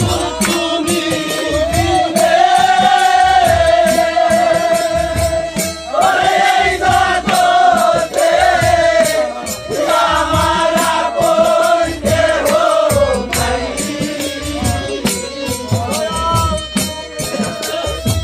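Live Bengali bicched (folk devotional) song: a singer holding long notes over a steady drum beat and rattling hand percussion.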